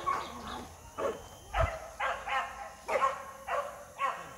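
Boar-hunting dogs barking again and again, roughly two barks a second.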